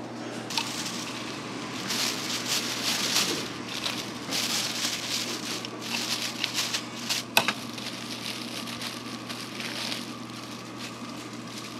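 Thin plastic bags rustling and crinkling in bursts as fried scallion bread sticks are bagged, with one sharp click a little past halfway.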